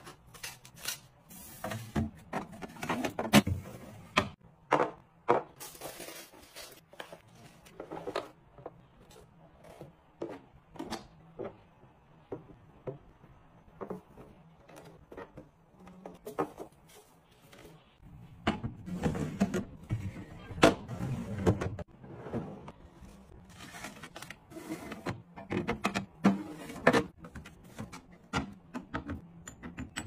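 Clear plastic storage bins and fresh produce being handled and set down on a marble tabletop: a string of light taps, clacks and rustles. The handling gets busier about two-thirds of the way in.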